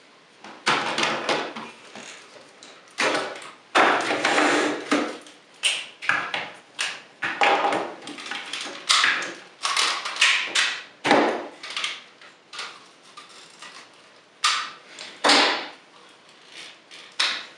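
Hard plastic parts of a DX SpinoThunder robot toy being unclipped and pulled apart by hand: an irregular run of clicks, knocks and rattles.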